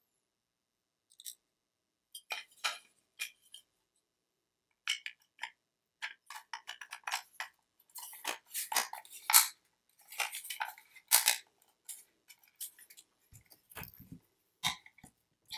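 Hard plastic housing of a DeWalt 20V Max battery pack being handled and pressed back together: irregular sharp clicks and clatters, thickest in the middle, then a few dull knocks near the end as the pack is set on the bench.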